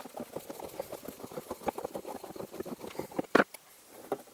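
Screws being undone from a plastic license plate holder with a screwdriver: a run of quick, irregular clicks, with one louder sharp click a little over three seconds in.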